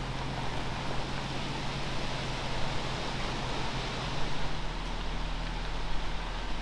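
A van driving on the road: a steady engine hum under road and wind noise, with the engine's tone shifting about four and a half seconds in.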